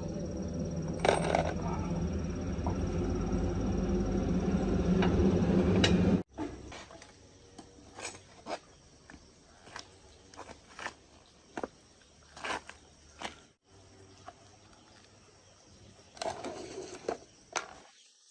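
A steady machine sound that grows louder, then cuts off abruptly about six seconds in, followed by scattered sharp metal clinks and taps, as of metal parts and hand tools being handled.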